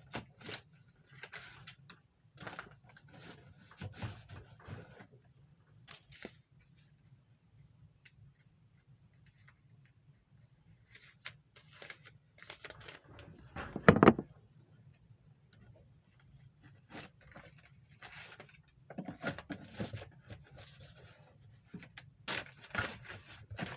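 Intermittent handling noises from hands-on work at an air handler: scraping, rustling and light clicks, with one loud knock a little past the middle.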